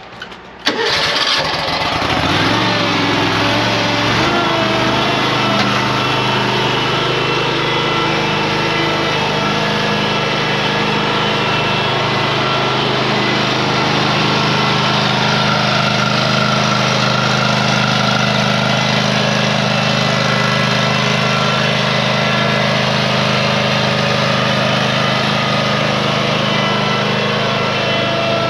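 Toro Z Master 6000 zero-turn mower's engine starting about a second in, rising in speed over the next couple of seconds, then running steadily at speed.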